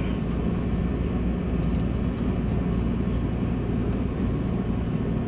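Steady low hum and rush inside a standing electric commuter train.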